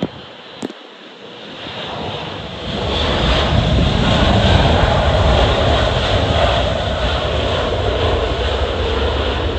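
Jet airliner engines swelling to a loud, steady rush as the aircraft passes, building from about two seconds in. Two sharp clicks just before it begins.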